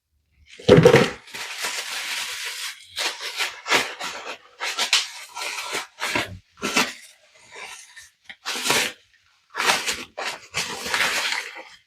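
A package being opened by hand: repeated short rustling and tearing of packaging, with a heavy thump about a second in.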